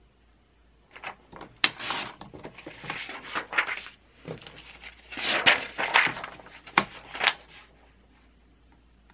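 Paper pattern sheets being handled and trimmed on a Fiskars sliding paper trimmer: rustling and clicks in two bursts, one from about a second in and another around five seconds in.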